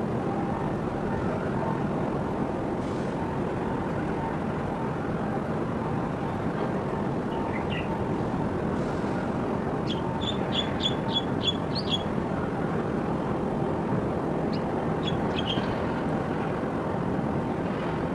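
Steady background noise of a busy harbour, with a small bird chirping a quick run of about seven high notes a little past halfway, and a few more notes shortly after.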